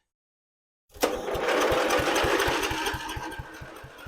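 An old lawn mower's electric starter cranking the engine on a dose of mixed fuel, starting suddenly about a second in with a quick, even chug of about seven to eight compression strokes a second, then fading toward the end as it slows.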